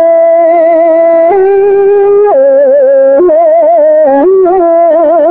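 Khmer smot: an elderly man chanting Buddhist verse solo and unaccompanied, holding long wavering, ornamented notes that step up and down between pitches without a break.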